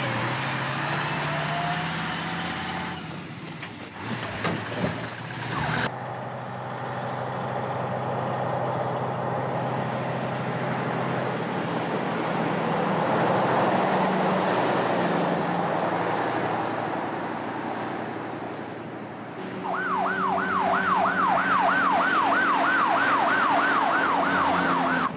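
A semi-truck's engine and tyres run steadily as it drives by, loudest about halfway through. About 19 seconds in, a police car siren starts, a fast wail rising and falling about three times a second.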